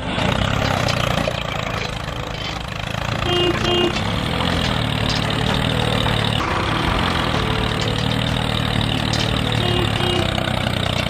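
Steady, low tractor engine sound running evenly as the toy tractor and its trailer move through sand, with a short double tone about three seconds in and again near the end.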